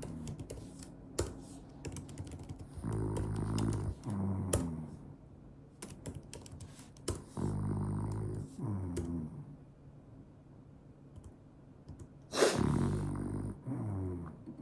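French bulldog snoring in its sleep: rough, low snores that come in pairs every four to five seconds, the loudest pair near the end, with sharp little clicks scattered between them.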